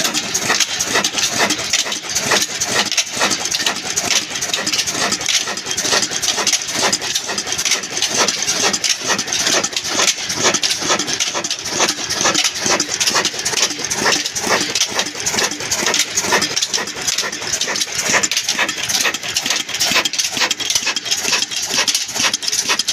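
Old black desi diesel engine running steadily, with a fast, even clatter of strokes.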